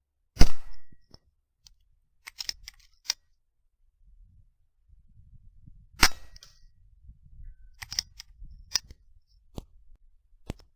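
Two sharp rifle shots, about half a second in and about six seconds in, the first trailing off briefly. Lighter mechanical clicks come between and after them, as the rifle is cycled and reloaded.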